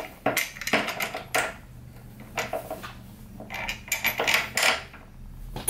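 Light metallic clicks and clinks from small screws being handled and held against an office chair's armrest holes, in several short clusters.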